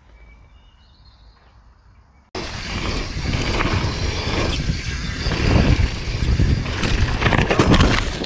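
Mountain bike ridden fast down a dirt trail: heavy wind buffeting the microphone, with tyre rumble and repeated knocks and rattles over bumps. It starts abruptly about two seconds in, after a short stretch of faint outdoor sound.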